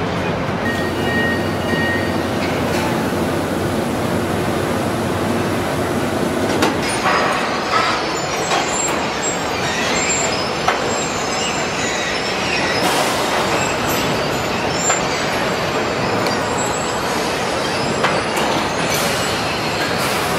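Truck assembly-line noise: a steady machinery din with scattered metal clanks, clicks and high squeals. The sound changes about a third of the way in, from a steadier hum with a few held tones to a busier clatter.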